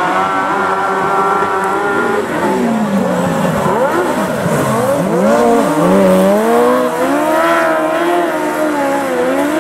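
Several speedway sidecar outfits racing together, their engine notes overlapping. The pitch falls as they back off into a turn about three to five seconds in, then climbs again as they power out.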